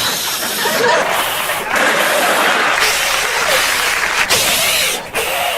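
Studio audience laughing in waves about a second long.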